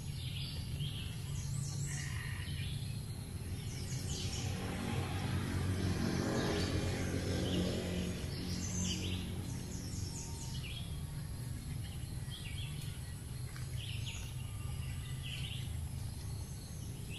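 Rural outdoor ambience: short high bird chirps scattered throughout over a steady low rumble, with a broad swell of noise that builds and fades in the middle.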